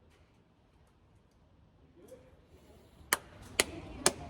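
Low background noise, then three sharp clicks about half a second apart near the end.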